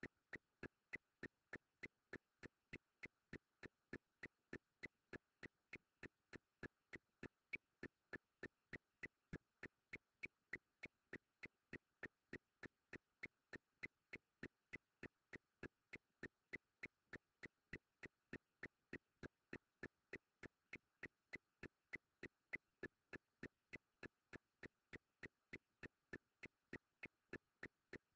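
Faint, regular ticking, about three ticks a second.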